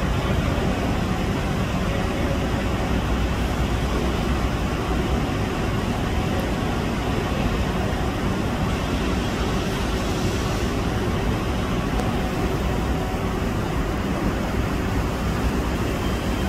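Steady low rumbling background noise with no distinct events and an even level.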